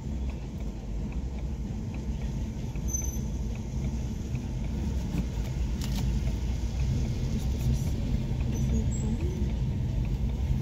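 Steady low rumble of a car's engine and tyres, heard from inside the cabin while driving slowly, with a few faint short high squeaks.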